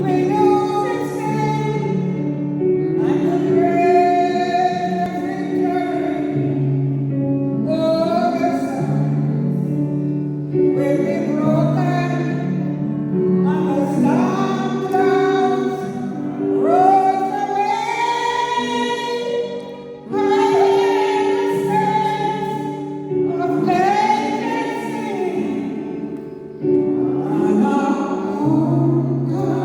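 Gospel song: a choir singing in phrases over long held low notes.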